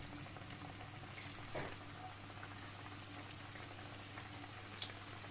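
Hot oil in a frying pan faintly bubbling and crackling as spoonfuls of potato pakora batter are dropped in to deep-fry, with a soft knock about a second and a half in.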